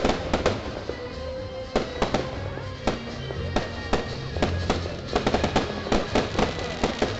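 Ground fountain fireworks spraying sparks with many sharp, irregular crackling pops, which come much thicker and faster about five seconds in.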